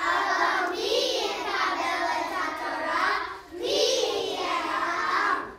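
Young children singing a song together in two sung phrases, with a short break about three and a half seconds in; the singing stops abruptly near the end.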